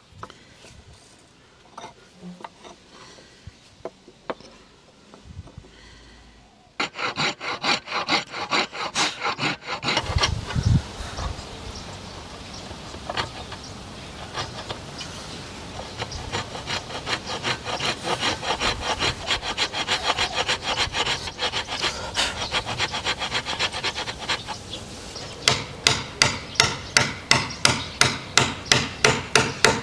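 Fine-toothed hand saw cutting a hardwood block held in a steel vise, in fast, even back-and-forth strokes, after a few light taps at the start. Near the end the strokes turn sharper and quicker, about four a second, as a narrow pointed blade is worked in the saw cut.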